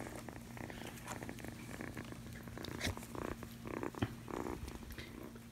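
Kitten purring softly and steadily, with a few faint clicks.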